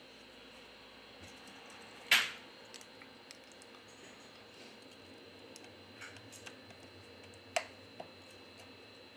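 Small clicks and taps of a smartphone's parts being handled and pressed into place on a bench: one sharp click about two seconds in, the loudest, and another sharp click about three quarters through followed by a lighter one, with faint ticks between.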